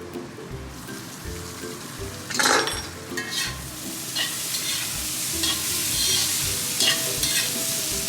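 Shredded cabbage sizzling in a hot wok while a spatula stirs and scrapes it against the metal. A sudden loud burst of sizzling comes about two and a half seconds in, and the sizzle stays louder after it.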